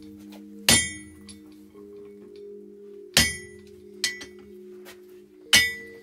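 A 2 kg blacksmith's hammer striking a red-hot square iron bar laid across a hardy cutter in the anvil, cutting the bar: four ringing, clanging blows, the first about a second in and the other three close together in the second half.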